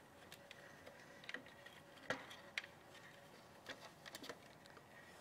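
Faint, scattered clicks and light rustling as the BG Pro trap's fabric body is pulled up over its plastic cylinder, the sharpest click about two seconds in and a small cluster near four seconds.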